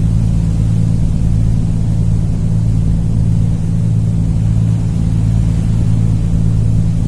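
Steady, loud drone of the KMP Portlink 2 ferry's engines heard on board while under way, a constant low hum over rumble.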